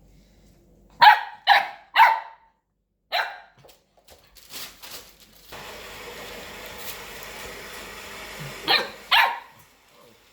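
A Labrador barking: three quick barks, a fourth a second later, then two more near the end. A steady hiss-like noise runs under the later part.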